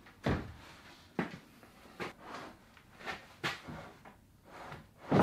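Wooden door frame being lowered onto and settled over a timber door lying on a bench: a series of separate wooden knocks and clunks, about six of them, with the loudest right at the end.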